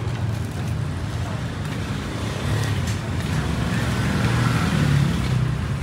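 Street traffic with an engine running close by, a steady low hum that swells about four to five seconds in as a vehicle passes.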